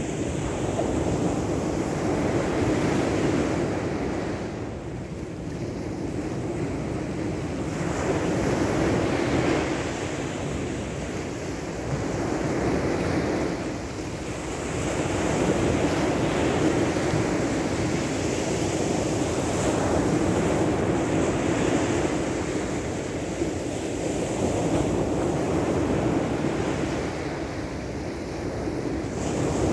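Ocean surf: a steady rush of waves washing in and drawing back, swelling and easing every few seconds.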